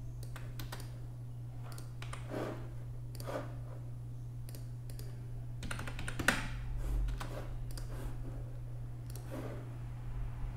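Computer keyboard keys tapped and a mouse clicked at irregular intervals, over a steady low hum.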